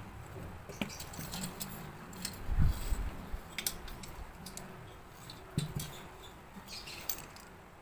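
Scattered light clicks and clatter of a spring-loaded scissor-arm microphone stand and its plastic phone-holder parts being handled, with a dull knock about two and a half seconds in.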